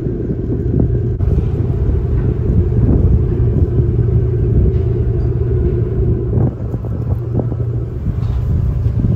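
Ferry's diesel engines running with a steady low rumble, heard on deck.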